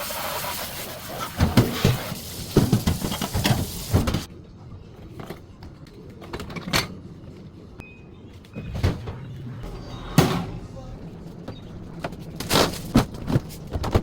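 Kitchen tap running for about four seconds and shutting off, then scattered clicks and knocks of plastic containers and fridge drawers being handled.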